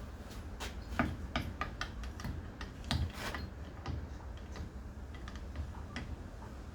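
Light clicks and taps of metal hand tools, among them a big adjustable spanner, handled against the parts of a small engine during a teardown. The clicks come close together for the first three and a half seconds, then only a few scattered ones follow.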